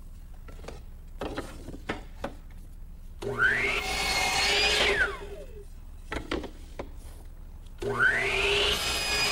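Power miter saw making two cuts through wooden boards: each time the motor spins up with a rising whine and cuts through the board. The first cut ends with the blade winding down in a falling whine; the second is still running at the end. A few light knocks of the wood being set against the stop come before the first cut.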